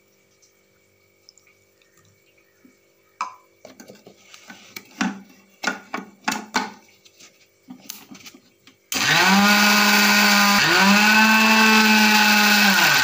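Electric mixer grinder (mixie) grinding mint, coriander leaves and green chillies with a little water into a green paste. A few clicks and knocks of the steel jar and lid come first; about nine seconds in the motor starts with a rising whine, dips for a moment in a short pulse, then runs again at a steady high speed.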